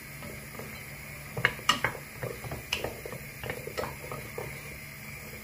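Wooden spatula stirring dark and light soy sauce with garlic in a stainless steel pot, giving irregular clacks and scrapes against the pot's sides and base, over a steady low hum.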